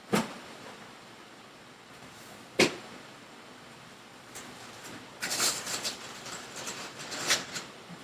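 Kitchen handling sounds: two sharp knocks a little over two seconds apart, then a couple of seconds of crackly rustling.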